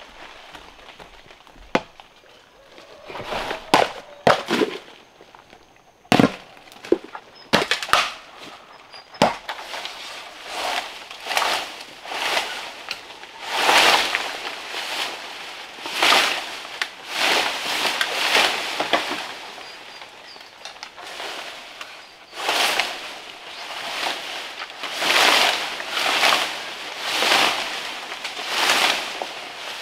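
Hand work on wood: a few sharp knocks in the first nine seconds, then steady rasping strokes about once a second.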